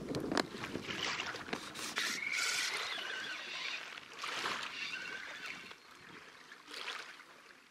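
Small river waves lapping onto a sandy shore, washing in and drawing back every two or three seconds. A few short clicks near the start.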